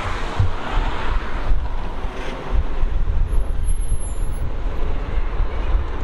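Wind buffeting the microphone in an uneven low rumble, over street traffic and a car driving slowly nearby. A brief thin high whine sounds about halfway through.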